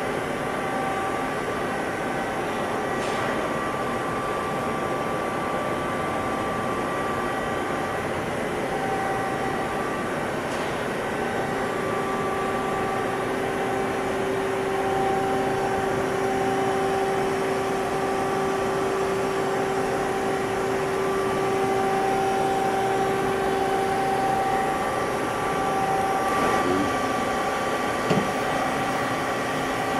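2004 Mazak Multiplex 4200 CNC lathe powered up and running, a steady mechanical hum with several whining tones that come and go. There is a short clack near the end.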